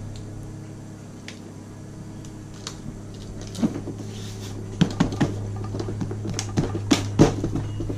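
Handling of an ATV seat: a hand patting and rubbing its sprayed-on coating, with a few sharp knocks and taps from about halfway in to near the end, over a steady low hum.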